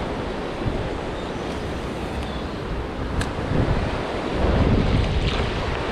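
Rough surf churning below the pier, with wind buffeting the microphone. The wind grows louder near the end, and a small click sounds about three seconds in.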